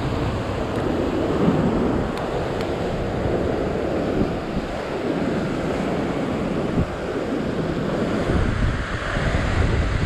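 Heavy surf breaking and washing over rock ledges: a steady rush of whitewater, with wind buffeting the microphone and adding a low rumble.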